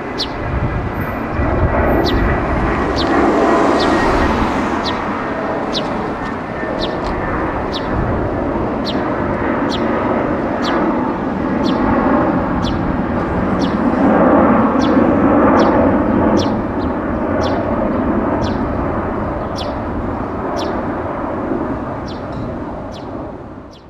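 Jet noise from an Airbus A330-300's twin Pratt & Whitney PW4000-series engines at climb thrust as the airliner climbs away after takeoff. It is a broad, loud rumble that swells and eases twice and dies away at the very end. Short high chirps repeat about once or twice a second over it.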